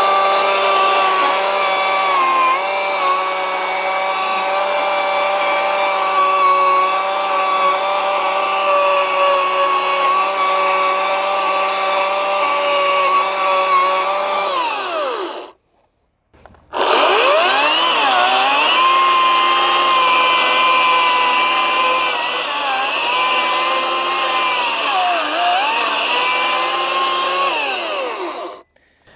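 Ryobi RY40580 40V brushless 18-inch battery chainsaw running through a stump: a steady high motor-and-chain whine that spins up, runs for about fifteen seconds and winds down. After a brief silence it runs again for about twelve seconds, its pitch dipping briefly three times in the cut before it winds down near the end.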